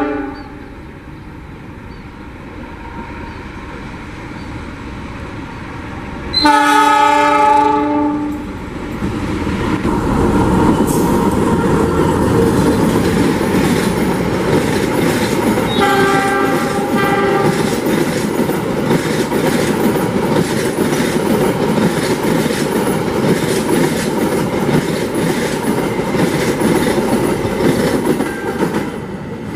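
Diesel-hauled express passenger train sounding its multi-tone horn in a long blast about six seconds in and a shorter one around sixteen seconds. It passes through the station at speed without stopping, the locomotive engine running and the wheels clattering over rail joints, and the noise eases near the end as the coaches go by.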